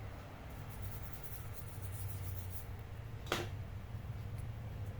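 Faint scratching and rubbing of small plastic laptop parts being worked by hand, with one sharp click just past three seconds in, over a steady low hum.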